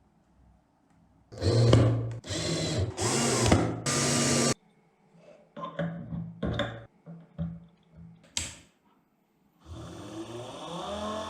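Homemade mini table saw's 775 DC motor tool working in short bursts: four loud spells in the first half, then shorter, fainter ones. Near the end the motor spins up with a rising whine.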